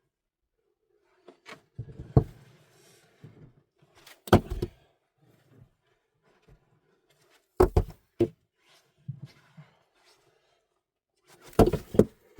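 Heavy knocks every few seconds, one on its own and then three quick pairs, with faint rustling in between.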